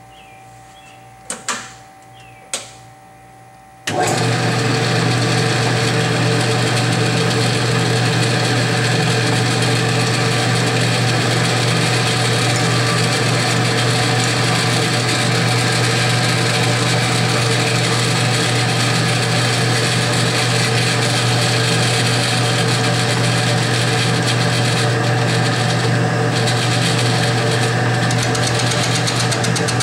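A few clicks, then about four seconds in a benchtop milling machine switches on and runs loudly and steadily, its motor and drive humming with a fly cutter turning in the spindle at about 400 RPM.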